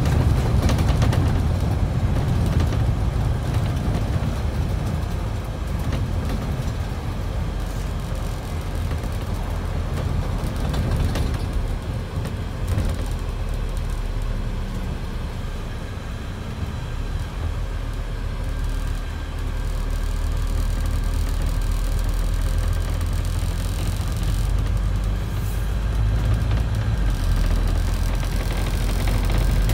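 Scania E400 double-decker bus running, heard from inside the bus: steady engine drone with road and tyre noise. It eases off about halfway through, around a roundabout, then builds again as the bus pulls away.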